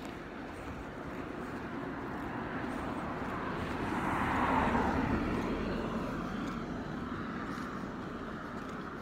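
A vehicle passing by: its noise grows louder to a peak about halfway through, then fades away.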